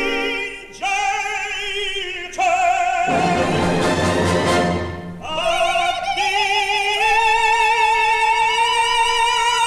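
Soprano and tenor singing an operatic duet with orchestra, from a live 1955 recording. The voices hold long notes with wide vibrato, drop out briefly about a third of the way in while the orchestra swells, then come back in on a long sustained note near the end.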